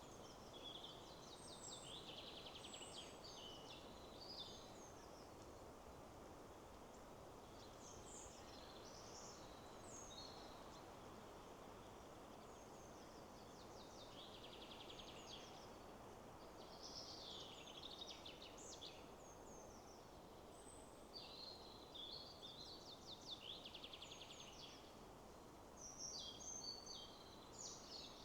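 Songbirds singing faint, high, chirping and trilled phrases every few seconds over a steady low rushing background noise.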